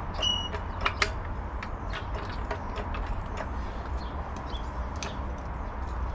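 Scattered light clicks and taps from hand tools and parts being handled during car suspension work, irregular rather than an even ratchet rhythm. A short high chirp sounds about a quarter second in, over a steady low rumble.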